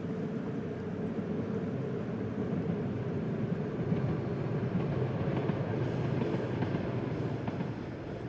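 JR West KuMoYa 443 electric inspection train running past along the line, with a steady rumble of wheels on rail that grows louder toward the middle.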